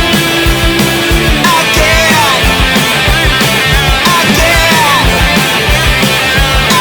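Indie punk-rock band recording, instrumental passage: driving electric guitars and drums with a steady kick beat, and a lead line sliding up and down in pitch a few times.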